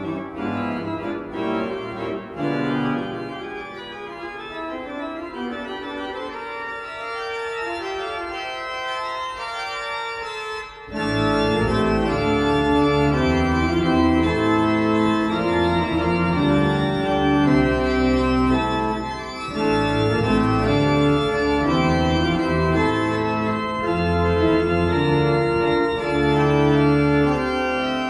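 Klais pipe organ playing a slow piece with sustained chords. About eleven seconds in, a fuller, louder sound with deep bass notes comes in.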